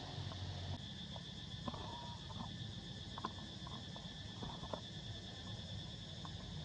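Steady high-pitched insect drone in tropical forest, with a few short chirps and clicks scattered through it.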